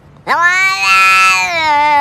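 Domestic cat giving one long, loud meow that starts about a quarter second in, rises quickly in pitch and then slowly falls.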